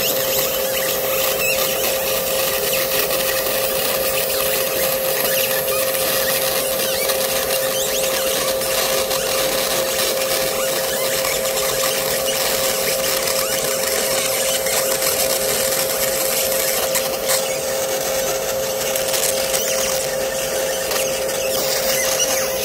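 A 50-watt fiber laser engraving a metal revolver frame: a steady, unchanging hum with an even hiss over it as the beam marks the metal.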